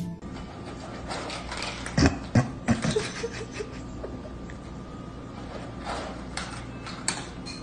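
A cat eating dry kibble from a bowl: scattered crunches and clicks over a low steady background noise.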